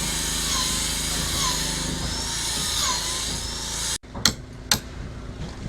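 A power tool runs steadily and stops abruptly about four seconds in. Two sharp knocks follow, close together.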